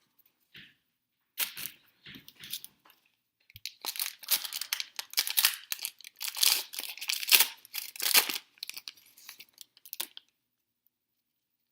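Trading card pack wrapper being torn open and crinkled, in scattered rustles that become dense and then stop shortly before the end.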